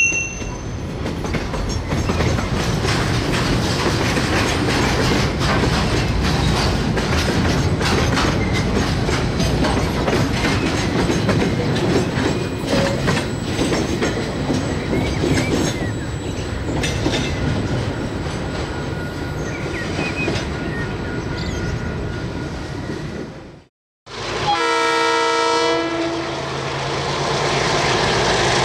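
Freight train wagons rolling past, their wheels clicking steadily over the rail joints, with a few faint thin squeals. Near the end the sound cuts out abruptly, then a short pitched horn-like tone sounds for about a second and a half, followed by a low steady hum.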